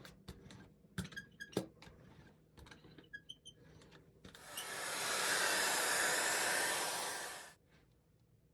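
A few light taps and clicks, then a hair dryer switching on and blowing steadily for about three seconds before cutting off, as used to dry paint layers in gel printing.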